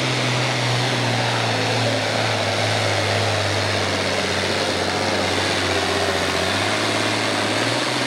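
International Harvester farm-stock tractor's diesel engine pulling a weight-transfer sled at full load down the track. Its note sinks slowly as the pull goes on, then lifts briefly near the end.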